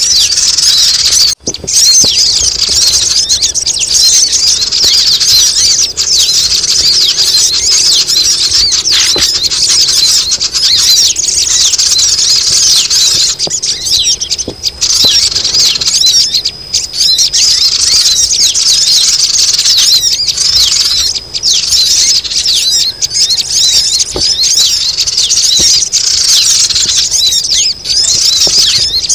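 Lure-call (pikat) recording of sogon birds: a dense, noisy chorus of many high, squeaky, chattering bird calls overlapping without pause, with a brief break just over a second in.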